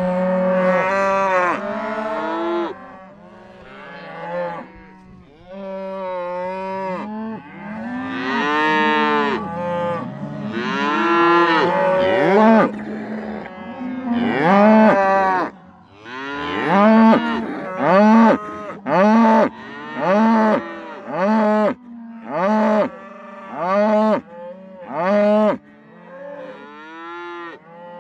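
Cows mooing: several long, overlapping moos, then a run of about eight short moos roughly a second apart, over a steady low drone.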